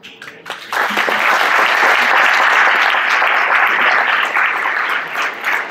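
Audience applauding: a few scattered claps at first, swelling to full applause within the first second and thinning slightly near the end.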